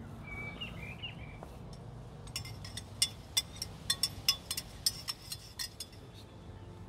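Metal spoon stirring coffee in an enamel camping mug, clinking rapidly against the sides, about four clinks a second. The clinking starts about two seconds in and stops shortly before the end.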